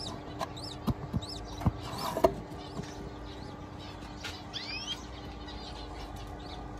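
Small cage birds chirping in short, repeated high calls, with a rising whistled call near the middle, over a steady low hum. Several sharp knocks from handling the wire cages and nest boxes come in the first half.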